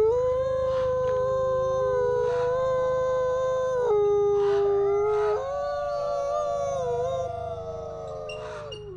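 Two gray wolves (Canadian/Rocky Mountain) howling together in a duet: long, steady, overlapping held notes. About four seconds in the pitch drops, rises again a second and a half later, and the howl tails off with a falling glide near the end as one wolf stops.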